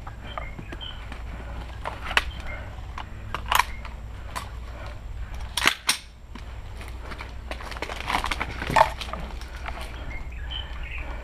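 Airsoft guns firing: scattered sharp pops and clicks, single shots and short clusters. The loudest clusters come a little before the middle and again about three quarters of the way through.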